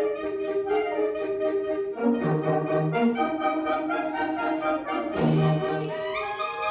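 Brass band playing an overture: sustained brass chords, with low brass notes coming in about two seconds in and a bright crash about five seconds in.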